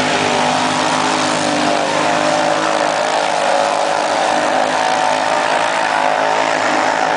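Several 800-class ATV engines held at high revs together as the machines plow through a water-filled mud pit, a steady, unbroken racket.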